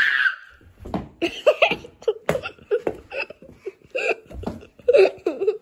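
Children giggling and laughing in short, choppy bursts, with a few knocks of movement in between.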